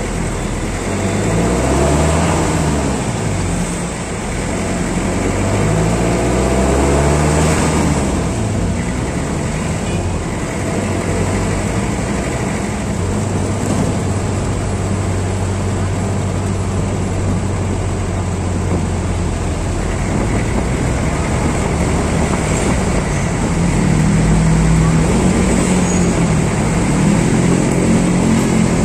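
Passenger jeepney's diesel engine pulling away and speeding up, its pitch rising and falling several times through the gear changes in the first eight seconds, then a steady drone while it cruises, picking up again near the end, with street traffic around it.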